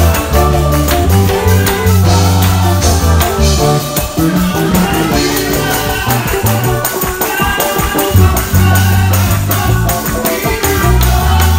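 Live gospel praise music with a stepping bass line, drums and tambourine keeping a fast beat, hand-claps, and voices singing over it.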